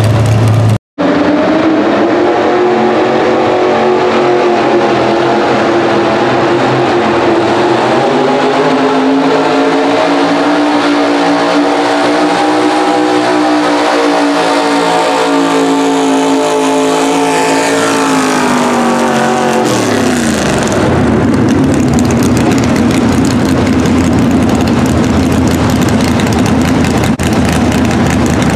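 Pro stock mini pulling truck's engine at full throttle hauling the weight sled. The revs climb about eight seconds in, then slowly sag as the pull goes on. About twenty seconds in the throttle comes off and the pitch falls sharply to a steady, lower-revving run. The sound cuts out briefly about a second in.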